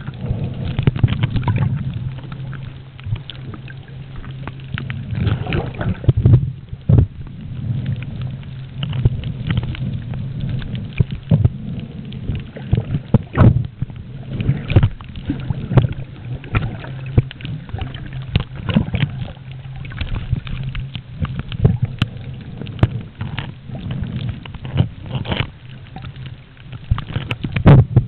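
Muffled underwater sound picked up by a camera submerged in the sea: a steady low rumble of moving water with many irregular clicks and knocks.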